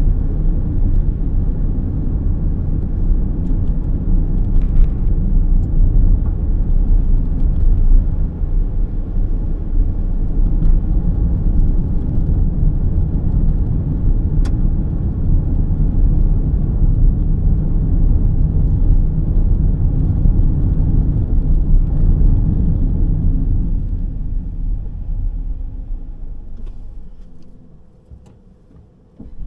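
Car driving along a road, a steady low rumble of tyres and engine. It fades out gradually near the end.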